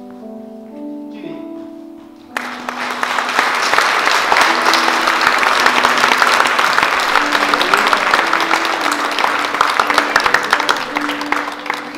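Soft instrumental music with held melodic notes, then about two seconds in an audience suddenly breaks into loud, sustained applause, with the music still faintly underneath.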